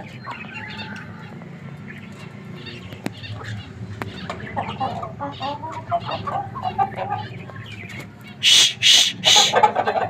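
Young Aseel chickens clucking and calling, then four loud, harsh calls in quick succession in the last two seconds.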